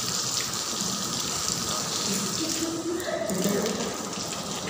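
Tap water running steadily and splashing over hands and face during wudu, the washing before prayer.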